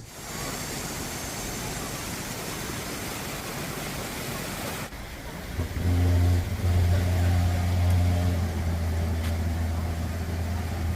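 Motor-vehicle noise: an even rush of traffic for the first five seconds, then after an abrupt change a steady low engine hum.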